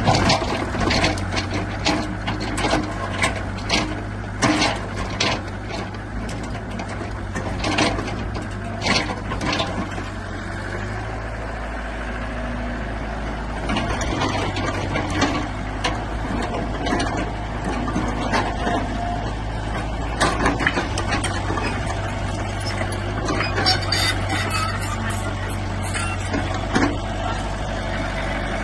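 Excavator's diesel engine running steadily, with frequent sharp metallic clanks and knocks over it.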